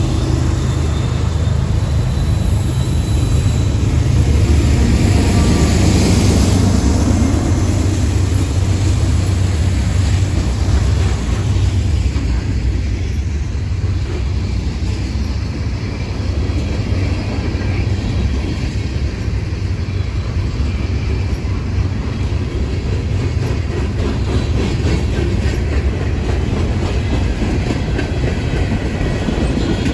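A train rolling past: a steady heavy rumble with the clatter of wheels on the rails.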